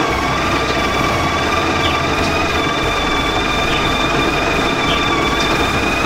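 Built-in conical burr grinder of a Sage Barista Express espresso machine grinding coffee beans into the portafilter: a loud, steady motor whine.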